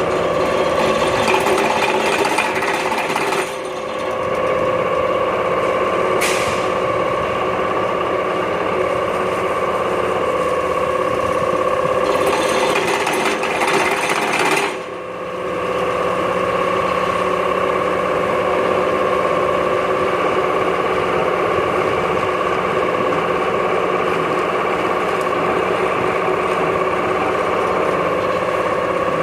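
Pile driver running continuously: a fast, dense hammering over a steady machine whine. It briefly drops in level twice, a few seconds in and about halfway through.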